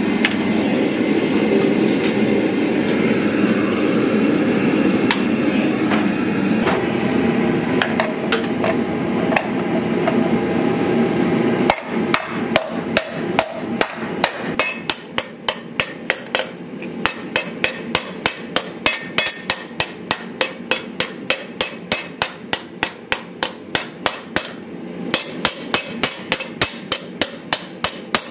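A gas forge burner gives a steady rush for the first twelve seconds or so. Then a hand hammer starts dishing a red-hot steel disc into a shield boss over a ring swage on the anvil, striking about two blows a second with a couple of short pauses.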